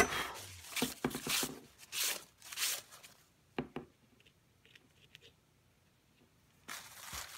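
Fingers rubbing dried frisket (masking fluid) off watercolour paper, lifting it away. There are several short, scratchy rubbing strokes in the first few seconds, a pause, then more rubbing near the end.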